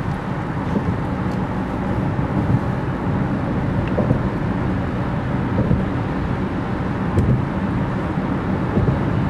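Steady low rumble of road noise inside a car driving at freeway speed.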